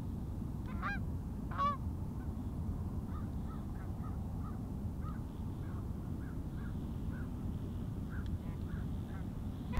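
Canada geese calling in flight: two loud honks about a second in, then a run of fainter, evenly spaced short honks and clucks from the flock, over a steady low background rumble.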